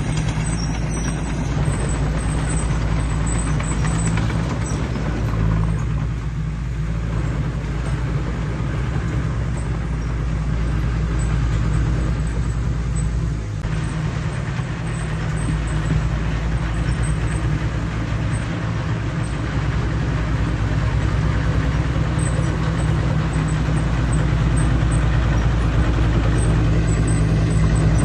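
Heavy diesel earthmoving machine running steadily with a deep, low engine drone that grows a little louder near the end.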